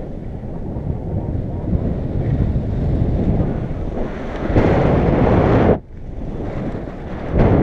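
Wind rushing and buffeting over a pole-mounted camera's microphone during a paraglider flight. It surges louder about two-thirds of the way through, drops away abruptly, then surges again near the end.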